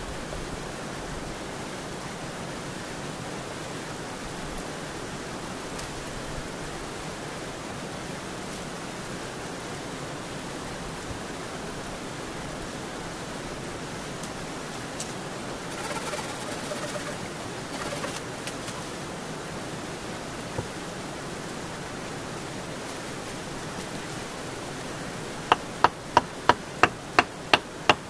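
Steady hiss of falling rain. Near the end comes a quick run of about eight sharp knocks, roughly three a second, from wood or tool strikes.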